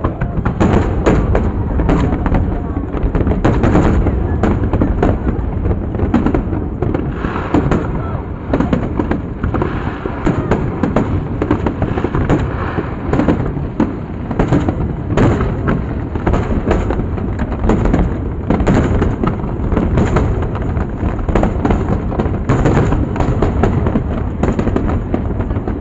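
Fireworks display in full flow: aerial shells bursting in rapid, overlapping bangs and crackles with no let-up.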